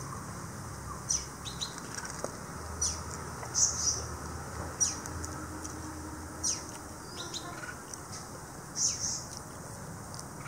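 Small birds chirping: a string of short, high chirps at irregular intervals, several sliding down in pitch.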